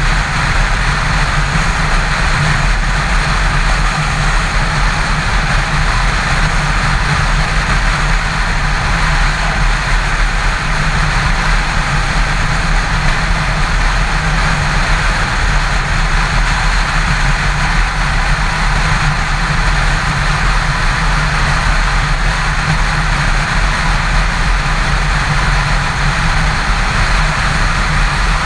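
Yamaha FZ6's inline-four engine droning steadily at highway cruising speed, under a constant rush of wind and road noise.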